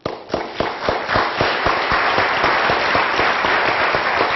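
Audience applauding. It starts suddenly with separate sharp claps and quickly fills out into dense, steady clapping.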